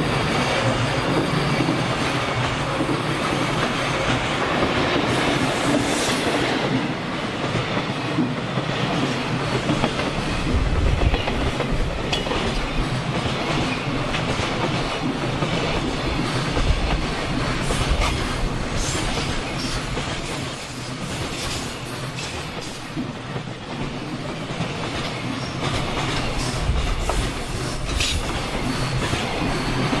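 Electric-hauled freight train running past, a steady rolling rumble with the wheels clacking over rail joints.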